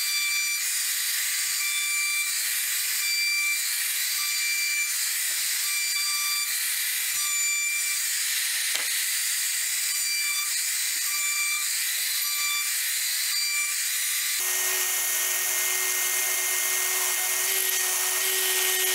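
Compact trim router running at high speed and cutting into a plywood block: a high-pitched whine with a regular pulsing. About fourteen seconds in it gives way abruptly to a Festool random orbital sander running steadily on wood, a lower, even hum.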